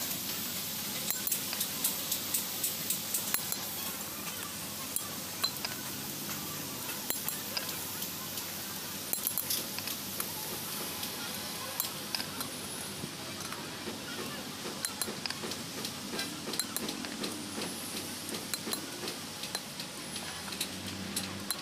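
Light metallic clinks and taps of a steel pin and punch worked against a truck clutch plate, scattered and irregular, over a steady background hiss.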